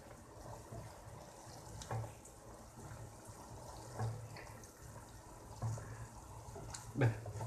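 Sugar syrup bubbling at the boil in a stainless steel saucepan while a wooden spatula stirs it, with a few knocks of the spatula against the pan, the loudest near the end.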